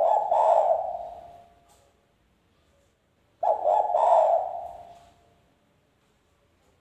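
Spotted dove cooing in its wild-type call, two calls about three and a half seconds apart, each fading out over a second or two.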